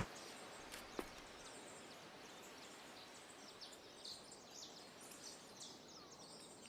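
Faint outdoor ambience with many short, high bird chirps scattered throughout, and a soft click about a second in.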